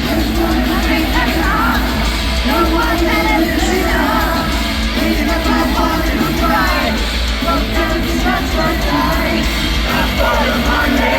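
Heavy metal band playing live in an arena, loud and continuous, with crowd voices yelling and singing along over the music.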